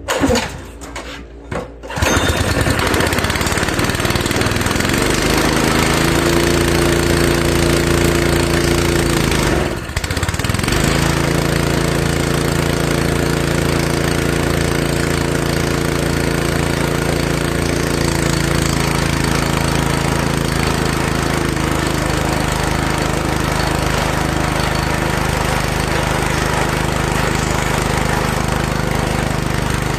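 Honda 5.5 hp single-cylinder four-stroke engine on a gas air compressor, pull-started on choke, catching about two seconds in and then running steadily while driving the compressor pump. The engine stumbles briefly about ten seconds in, then picks up again and keeps running on its newly fitted carburetor.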